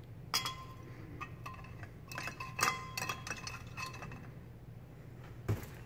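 Opal glass lamp shade being set onto a brass shade holder: a run of light glass-on-metal clinks, some ringing briefly, then a duller knock near the end.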